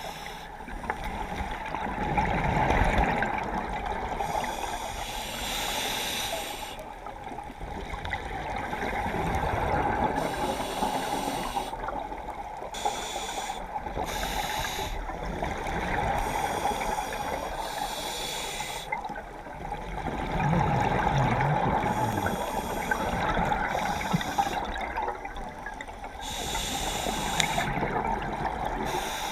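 Scuba diver breathing underwater through a regulator: hissing inhalations alternate with bubbling exhalations, about one breath every three to four seconds.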